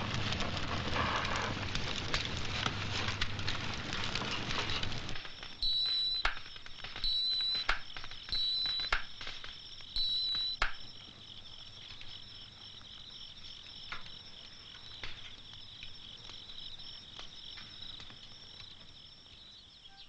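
Campfire crackling, dense for the first five seconds and then thinning to occasional pops. Under it from about five seconds in is a steady high insect trill, with four short chirps about a second and a half apart.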